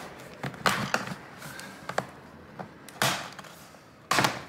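Plastic retaining clips of a Lenovo IdeaPad Flex 3i Chromebook's bottom cover snapping loose as the cover is pried off: about five sharp clicks at uneven intervals, the loudest near the end.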